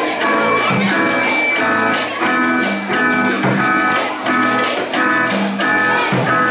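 Several acoustic guitars strumming chords together in a steady rhythm, the chords changing every half second or so.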